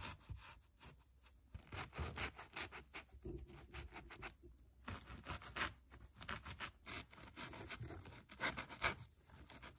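Plush toy ponies' muzzles rubbed into dry oats in shallow feed pans, acting out the ponies eating. The grains and fabric give a faint, irregular rustling and scraping.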